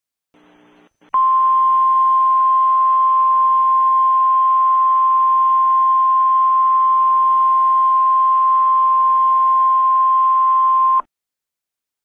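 Emergency Alert System attention tone: one loud, steady, high beep-like tone over a light radio hiss. It starts about a second in, holds for about ten seconds, then cuts off abruptly.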